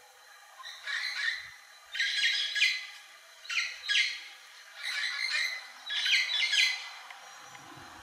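Lineated woodpecker giving harsh calls in about five short bursts, a little over a second apart, each burst a quick run of rough notes.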